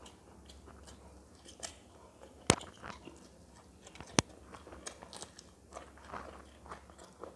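Close-miked chewing of a mouthful of food eaten by hand, with soft wet mouth sounds and two sharp crunches, about two and a half and four seconds in.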